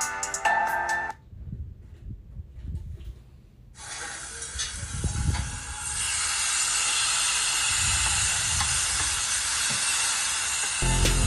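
Marinated beef sizzling on a tabletop Korean barbecue grill: a steady hiss that starts about four seconds in and holds.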